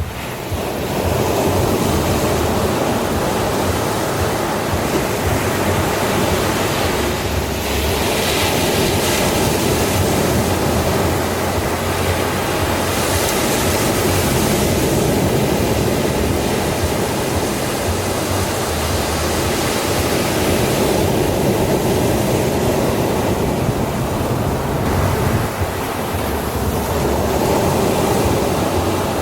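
Ocean surf: a continuous rush of breaking waves, with brighter hissing swells as waves break about eight and thirteen seconds in.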